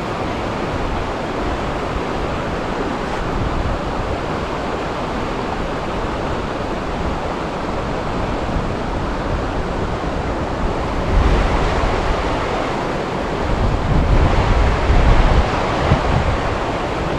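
Wind buffeting the microphone over a steady rush of stream water, with heavier gusts rumbling about eleven seconds in and again a couple of seconds later.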